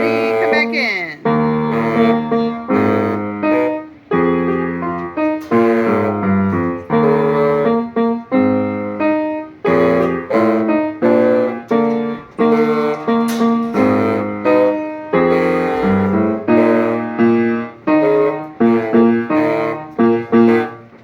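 Piano playing a melodic piece in chords and single notes, each note struck and then fading.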